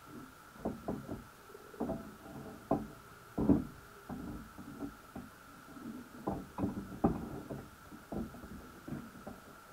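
Irregular dull knocks and clicks picked up underwater by a camera in a wire crab pot, several a second at times, with two louder knocks about three and a half and seven seconds in. A faint steady whine runs underneath.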